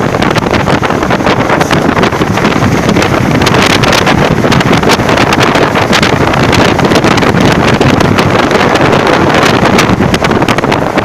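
Strong wind blowing straight onto the microphone: a loud, continuous rushing rumble, flapping and buffeting in quick gusts.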